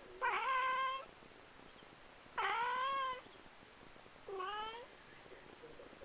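Bengal cat meowing three times at birds outside the window. Each meow starts low and rises before levelling off, and the third is shorter and softer.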